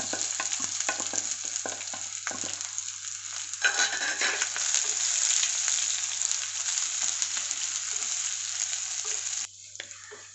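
Sliced shallots and chillies sizzling in hot coconut oil, stirred with a wooden spatula that scrapes and taps against the pot, with sharp clicks in the first couple of seconds. The sizzle cuts off suddenly near the end.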